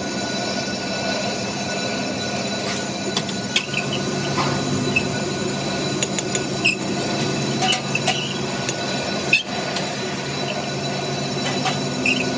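Several sharp metal clinks and knocks as a lathe's three-jaw chuck is worked with a steel chuck key and a differential spider cross is shifted in its jaws, over a steady machine hum.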